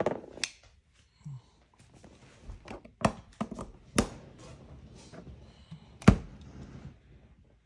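LEGO plastic pieces being handled and pressed together: several sharp clicks and knocks with light rustling between them, the loudest knock about six seconds in.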